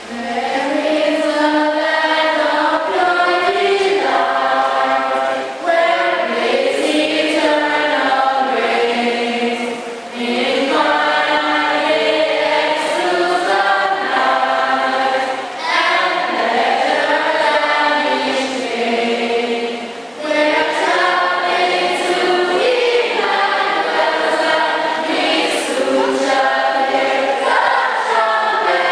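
Many voices singing together, sung lines with a short break for breath about every five seconds.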